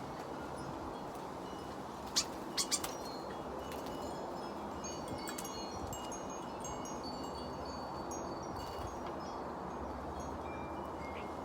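Wind chimes ringing irregularly in the wind, many short tones at different pitches, with a quick run of three louder strikes about two seconds in, over a steady low wind rush.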